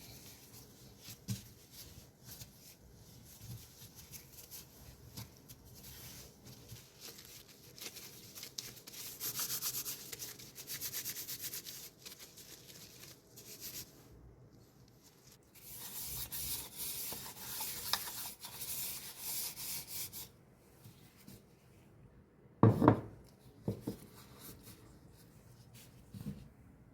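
Rubbing and scraping of food preparation, in two stretches of a few seconds each, then a couple of sharp knocks about two-thirds of the way through.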